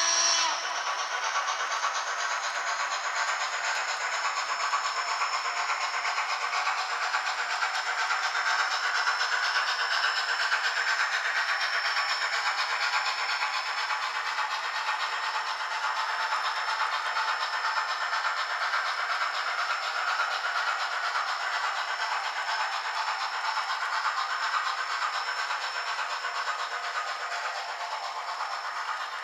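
Steam locomotive sound from a Soundtraxx Tsunami2 decoder in an HO scale N&W Z1a 2-6-6-2 model, played through its small speaker: a whistle cuts off just after the start, then a steady hissing steam exhaust that fades slightly near the end.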